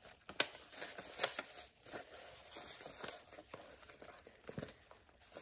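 Paper rustling and crinkling as the pages and tucked-in pieces of a handmade junk journal are handled, with a few sharp little clicks and taps scattered through.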